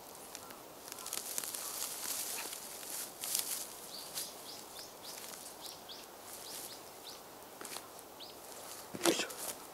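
Shovel working damp soil: scraping and rustling as earth is scooped, then a dull thud about nine seconds in as the blade is driven into the ground. A small bird chirps a quick string of short notes in the middle.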